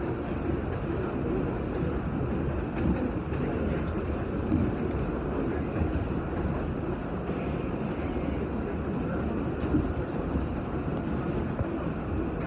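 An R46 subway car running along elevated track, heard from inside the car. A steady rumble of wheels on rail and the car's running gear goes on throughout.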